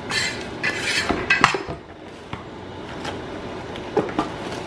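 Plastic food wrap rustling and crinkling as it is pulled and pressed over dough in a steel bowl, mixed with sharp knocks of a metal dough scraper on a wooden cutting board, the loudest about one and a half seconds in. It goes quieter after about two seconds, with a couple more light knocks near the end.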